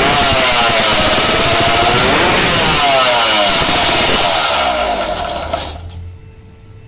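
Sliding-cylinder two-stroke engine with expansion-chamber (stinger) exhausts running loudly on a dyno, its revs rising and falling. It dies away and stops about six seconds in.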